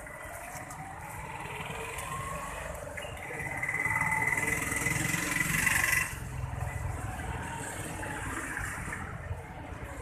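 Street traffic: a motor vehicle running close by, with a rising whine in the first two seconds and louder from about four to six seconds in, where it cuts off suddenly.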